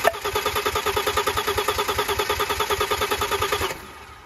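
Audi 2.7-litre twin-turbo V6 being cranked over by its starter motor without firing, with a compression gauge fitted to one cylinder for a compression test. It makes a steady, rhythmic chugging and stops abruptly near the end.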